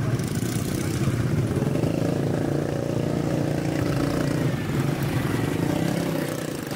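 Quad bike (ATV) engines running and revving as the bikes drive across rough dirt ground.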